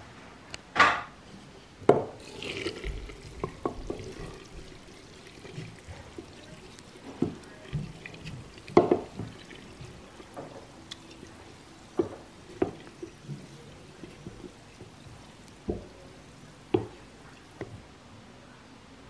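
Wooden spatula stirring wet fermenting rice mash in a glass jar: irregular wet squelching and sloshing, with sharp clicks and knocks scattered through.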